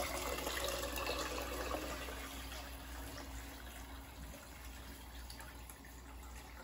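Chicken broth poured from a can in a steady stream into a pot of liquid, splashing. The pour is loudest in the first two seconds and slowly grows softer.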